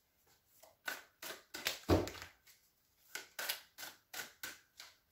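A deck of tarot cards being shuffled by hand: quick runs of papery card slaps, several a second, with a pause of about a second in the middle and one heavier knock about two seconds in.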